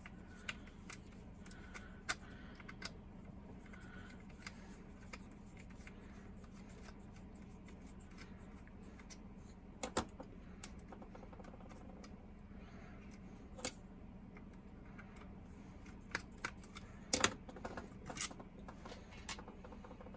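Scattered small clicks and taps as a small screwdriver works out screws on an HO-scale Rivarossi Big Boy model locomotive and the model and tools are handled. The loudest clicks come about halfway through and in a cluster near the end, over a faint steady low hum.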